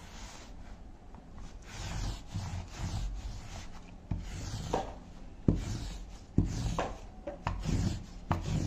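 Adhesive lint roller rolled in repeated strokes over dark cloth, a rubbing sound of the sticky tape on fabric; the strokes grow louder and sharper in the second half.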